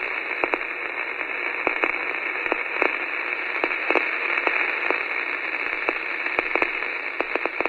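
Steady radio-like static hiss with scattered crackles and clicks throughout, thin-sounding as if heard over a radio or phone line.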